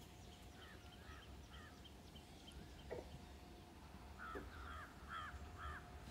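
Faint bird calls: a run of three or four short repeated calls about a second in, and another run of four near the end, over a faint steady hum.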